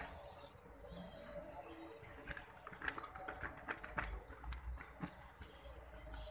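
Ringneck dove squabs being fed by a parent: thin high squeaks early on, then from about two seconds in a busy run of quick clicks and fluttering as bills and wings work during the crop-milk feeding.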